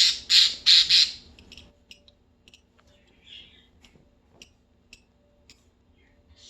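Budgies in a nest box: about four harsh, rasping calls in quick succession in the first second and a half, then faint clicks and small chirps.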